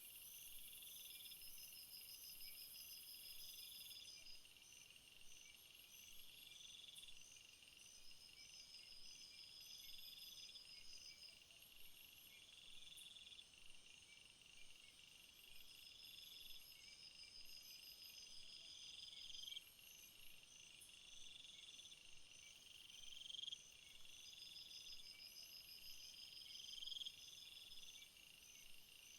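Several insects, crickets and the like, chirping in a summer field, all high-pitched and faint. A steady pulsed chirping runs underneath, one song swells for a few seconds and stops sharply about every four seconds, and short trills recur every few seconds.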